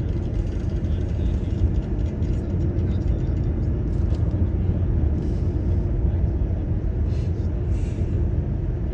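Car driving along at steady speed: constant low rumble of engine and road noise.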